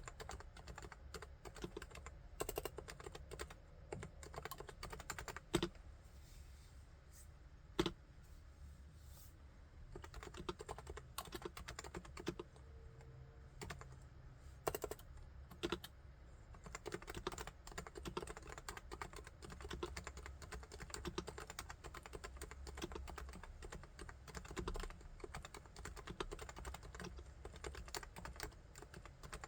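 Typing on a Topre Realforce R3 keyboard with electrostatic capacitive (Topre) switches: a fast, uneven run of keystrokes, with a few single louder strikes and a brief lull about a third of the way in.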